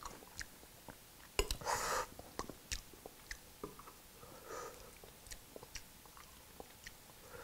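A man eating: quiet chewing and mouth sounds, with small clicks of a metal spoon against a glass serving dish and a bowl as he ladles soup. A louder, breathy sound comes about a second and a half in.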